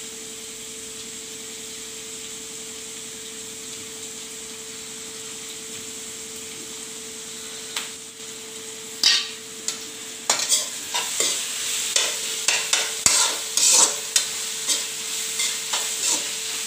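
Chopped onions frying in oil in a kadai, a steady sizzle with a steady hum beneath it. About ten seconds in, a spatula starts stirring them, scraping and clinking against the pan in quick, irregular strokes.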